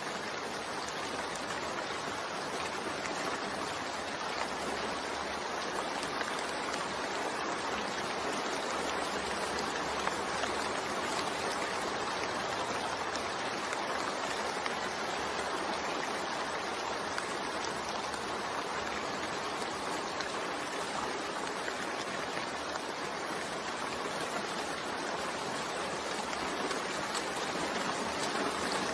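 Steady rain, an even hiss with no other sounds over it.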